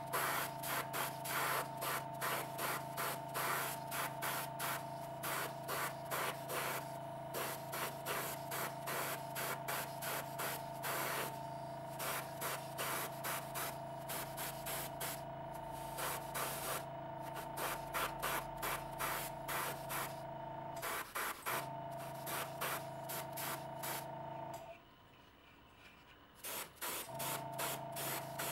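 Airbrush spraying light coats of weathering paint in short, rapid bursts of hiss, about three a second, over a steady hum. The spraying stops for about two seconds near the end, then resumes.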